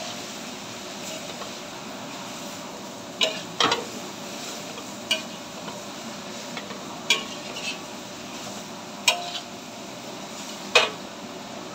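Stir-frying in a pan: a metal spatula knocks sharply against the pan several times, a second or two apart, over a steady sizzle.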